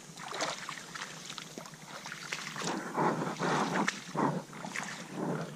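Footsteps wading through shallow swamp water and brushing through grass: a run of irregular sloshes and swishes, loudest a little past the middle.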